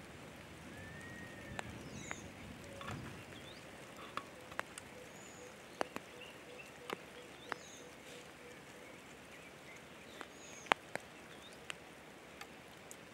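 Light rain: scattered drops landing with sharp, irregular taps over a faint steady hiss. A few short high chirps sound now and then.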